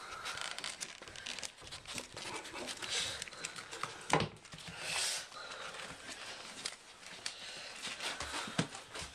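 Five-week-old English Bull Terrier puppies moving about on newspaper bedding, with the paper crinkling and rustling and a puppy breathing close to the microphone. There is one louder knock about four seconds in as a puppy bumps into the camera.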